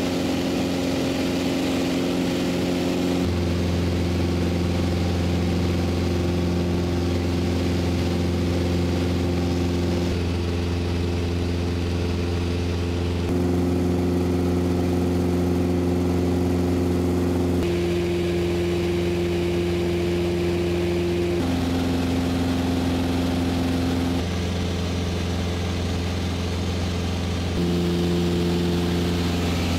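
Mooney M20J 201 light aircraft's four-cylinder engine and propeller running steadily, in a string of clips that cut abruptly every few seconds, each with a slightly different steady pitch.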